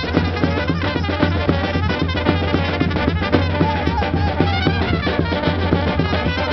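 A Macedonian Romani brass band playing live: trumpets and tubas carry the tune over a steady drum beat.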